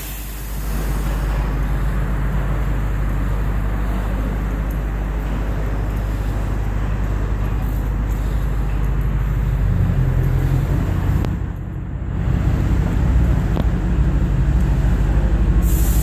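Idling engine of a second-generation Lexus GS, a steady low hum that grows louder in the second half. Right at the end a loud hiss of air starts: the air suspension venting air.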